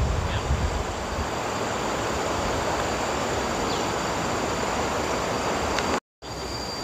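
Steady wind blowing through the trees, with some wind buffeting on the microphone as it starts. The sound cuts out completely for a moment about six seconds in.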